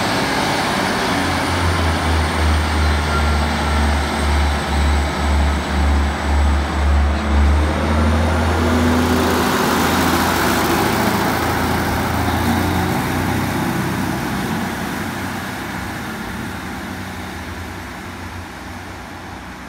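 ScotRail Class 156 diesel multiple unit moving off along the platform: a low, pulsing diesel engine drone with a thin high whine, steadying after about nine seconds and then fading as the train draws away.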